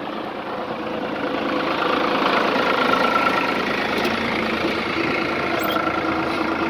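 New Holland TD65S tractor's diesel engine running steadily, getting louder over the first few seconds.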